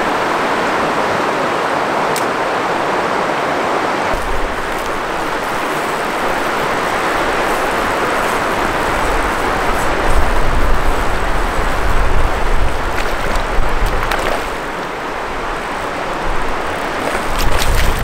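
Creek water rushing over a riffle. Gusts of wind rumble on the microphone about ten seconds in, and a hooked trout splashes in the shallows near the end.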